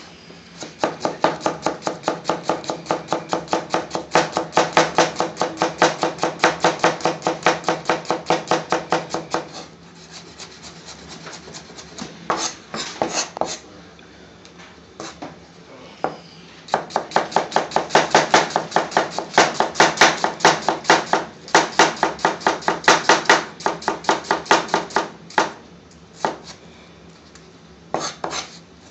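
Chef's knife rapidly slicing a red onion on a plastic chopping board: quick, even knocks of the blade on the board. The slicing comes in two long runs, with a pause of several seconds in between that holds only a few scattered strokes.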